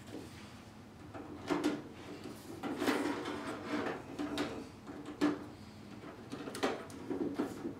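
4-foot T8 LED tubes being fitted into a fluorescent fixture's tombstone lampholders: rubbing and scraping as a tube is handled into place, with several sharp clicks as its end pins snap in.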